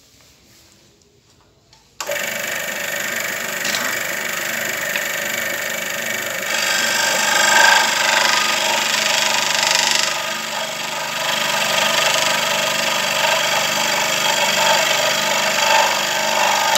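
Ryobi TF-45 electric scroll saw switched on about two seconds in, starting suddenly and running steadily, somewhat louder a few seconds later.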